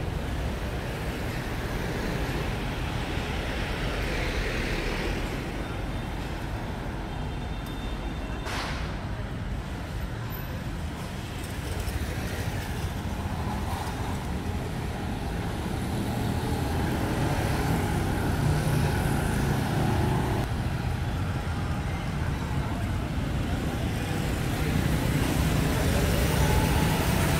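Busy city street traffic: a steady wash of motorbike and car engines passing close by, with one sharp click about eight seconds in and the traffic growing louder in the second half.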